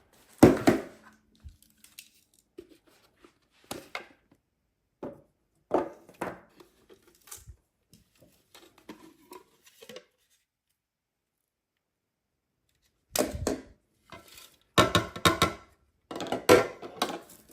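Parts of a corded stick vacuum being taken apart by hand with the motor off: scattered clicks and knocks, a few quiet seconds in the middle, then a run of clattering near the end.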